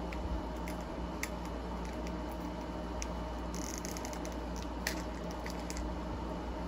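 Trading cards and booster-pack packaging being handled: scattered small clicks and a brief crinkle about three and a half seconds in, over a steady low hum.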